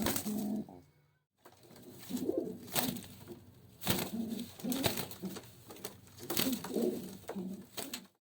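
Domestic pigeons cooing over and over, with several sharp clicks among the calls.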